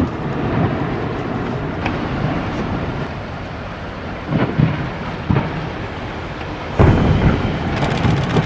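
Deep, continuous rumbling of an iceberg collapsing, with a few short thuds midway and a sudden louder surge of rumbling about seven seconds in.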